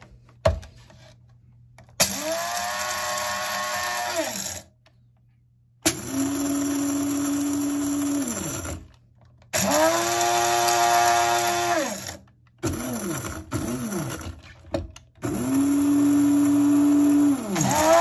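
Electric blade coffee grinders, a Capresso and a Krups Silent Vortex, grinding beans. There are four motor runs of two to three seconds each, each whirring up to speed and winding down, with a few quick short pulses between the third and fourth. A last run starts near the end.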